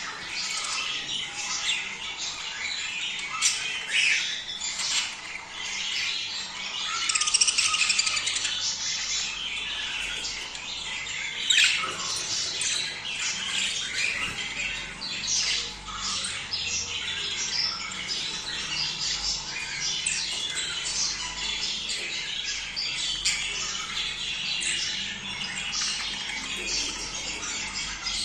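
A flock of budgerigars chattering and squawking continuously, a busy overlapping stream of warbles, chirps and harsh squawks; this is the calling of budgies in breeding condition. A few louder squawks stand out, the loudest about 7 to 8 seconds in and near 12 seconds.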